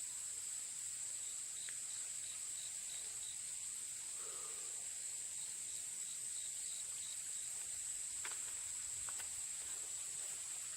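Steady high-pitched insect chorus from crickets or similar insects. A fainter chirp repeats about three times a second in two runs, and a few faint ticks come near the end.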